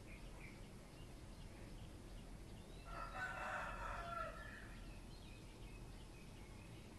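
A rooster crowing once, a single crow of about a second and a half, about three seconds in.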